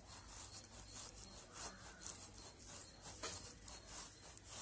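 Peeled plantain being grated on a stainless steel box grater: a faint, repeated rasping scrape, about two or three strokes a second.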